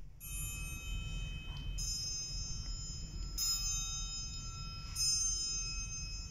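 Bells struck one note at a time: four clear, high ringing notes about a second and a half apart, each left to ring on.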